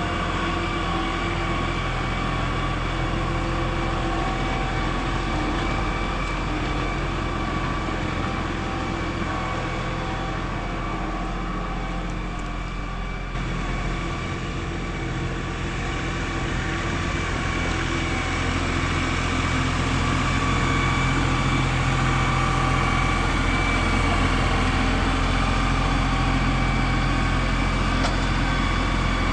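Tractor engine running steadily, getting a little louder about two-thirds of the way through.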